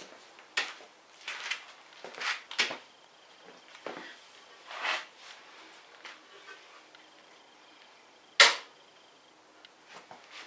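Hand work on a motorcycle's bodywork and frame: irregular clicks, knocks and short scrapes as parts are handled and fitted, with one sharp knock about eight seconds in.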